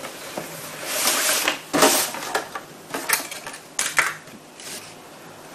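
Cardboard kit box being opened and its contents pulled out: paper plans and a plastic bag of small plastic parts rustling and sliding, with a few light clicks and clatters in the second half.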